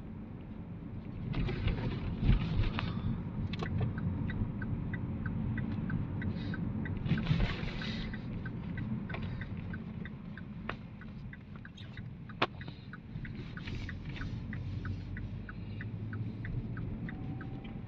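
Vauxhall Vectra taxi's engine and road noise inside the cabin while driving, a steady engine thrash with a few knocks from the road. About six seconds in, a regular ticking starts at about three a second and runs until near the end.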